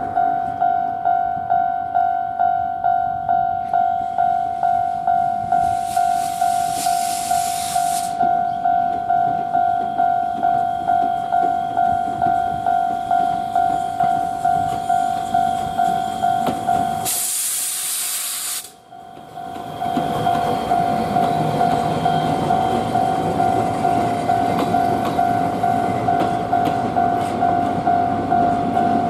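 A level-crossing warning bell rings about twice a second as steam locomotive C58 363 passes. Loud hisses of steam come about six seconds in and again near seventeen seconds, and the bell drops out during the second. After that the rumble of the passenger coaches rolling by on the rails runs under the bell.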